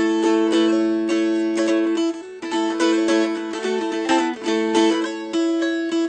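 Mountain dulcimer played with a flatpick: a melody picked one string at a time, note after note, over steady ringing drone strings.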